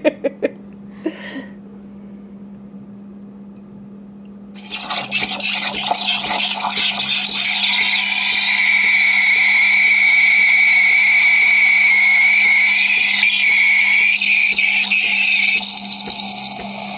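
Espresso machine steam wand hissing as it steams and froths a pitcher of almond milk mixed with apple juice, starting suddenly about four and a half seconds in. A high, steady squeal rides over the hiss for several seconds and drops out near the end.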